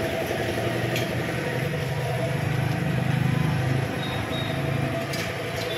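Diesel engine of a Mahindra Bolero Maxx Pik-Up idling steadily under the open bonnet, a low even hum.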